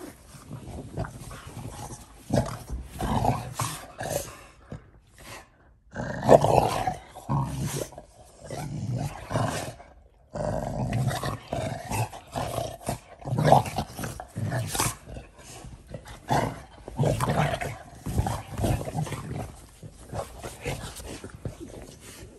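Two Shar-Pei dogs play-fighting, growling at each other in irregular bursts, twice breaking off briefly.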